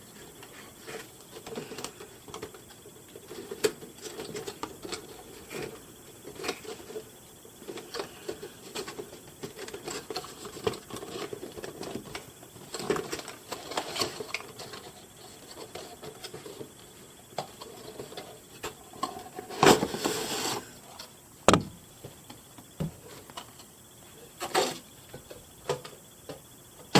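A doll's retail box being opened and unpacked by hand: a string of small clicks, scrapes and rustles of cardboard and plastic packaging, with a louder burst of crinkling about three-quarters of the way through and a few sharp snaps after it.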